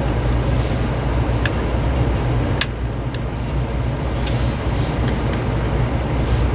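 Steady low hum in the background, with a few sharp clicks as the plastic cordless phone handset is handled and pressed together.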